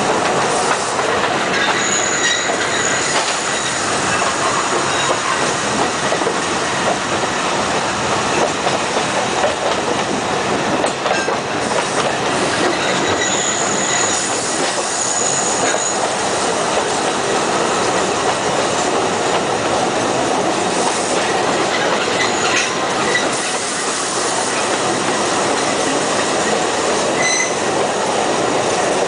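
Narrow-gauge Alishan Forest Railway carriages running along the track, heard from an open carriage window: a steady rumble and clatter of wheels on rails. A high-pitched wheel squeal comes in about two seconds in, again for a few seconds in the middle, and briefly near the end.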